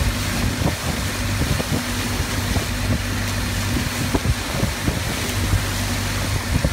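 Speedboat engine running steadily at speed, a constant low hum, with water rushing and splashing along the hull and wind on the microphone.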